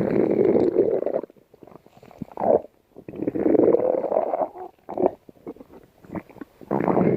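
A hungry human stomach growling: three long rumbling growls, at the start, about three seconds in and near the end, with short grumbles between them.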